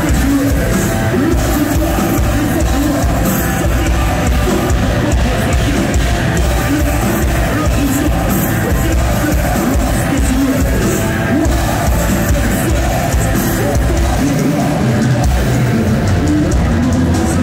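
Heavy metal band playing live through a venue PA, heard from within the crowd: loud drums and distorted guitars with a male singer.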